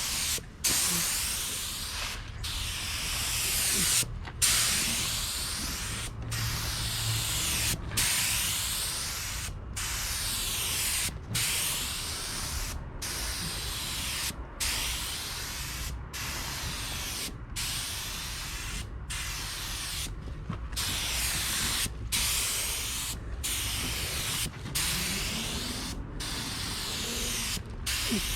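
Compressed-air spray gun hissing as it sprays coating onto a truck bed in repeated passes, the trigger let off briefly about every one and a half to two seconds between strokes.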